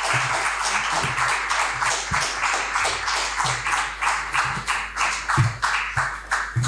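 Audience applauding, the claps falling into a steady rhythm of about three a second in the second half before dying away at the end.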